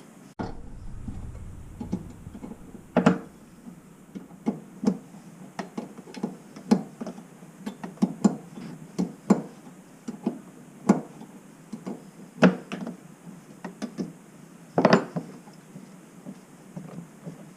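Irregular knocks and metal clinks of hand tools and fittings being worked under a kitchen sink during a faucet swap, with a few louder knocks among them.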